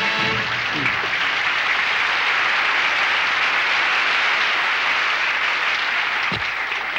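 Studio audience applauding, with music cutting off just as the applause starts; the clapping dies down near the end.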